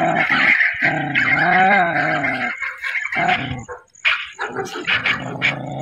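A dog vocalising in long, drawn-out growling moans that rise and fall in pitch, breaking into shorter calls from about three seconds in.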